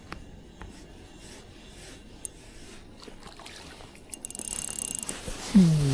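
Fishing gear while a hooked horse mackerel is brought in: a few separate clicks, then a fast run of clicking and rattling with a short hiss about four seconds in.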